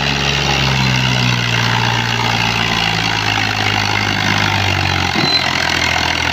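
Al-Ghazi tractor's diesel engine labouring as it pulls a fully loaded trolley, a load heavy enough to lift the tractor's front wheels off the ground. A steady low drone whose pitch dips slightly about a second in and again near five seconds.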